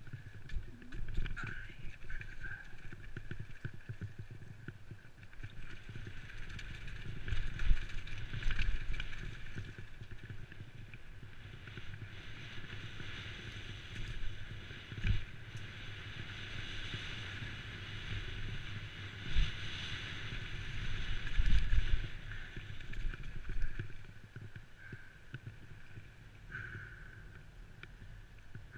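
Downhill mountain bike riding fast over a rocky trail, heard from a helmet-mounted camera: a steady rush of wind and tyre noise with repeated low thumps and rattling as the bike hits rocks. It gets quieter in the last few seconds.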